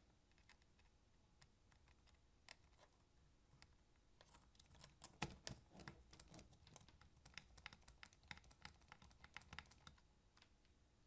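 Faint, irregular small clicks and ticks of a precision screwdriver and fingers on the plastic-and-metal chassis and circuit board of a portable DCC cassette player being taken apart, coming thickest from about four seconds in.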